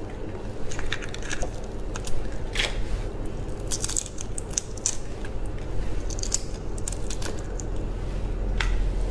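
Fingers peeling the shell off a large cooked prawn: scattered crisp crackles and clicks as the shell snaps and tears away, over a low steady hum.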